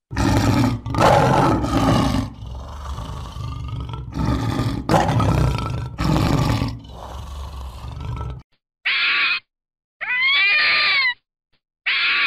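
Male lion roaring, a series of deep, loud calls that cuts off suddenly after about eight seconds. Then three short high calls follow, each rising and then falling in pitch.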